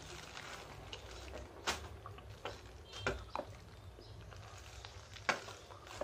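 Eating noises while chewing a mouthful of rice and raw egg: a handful of short sharp clicks and smacks, the loudest a couple of seconds in and again near the end, over a low steady background hum.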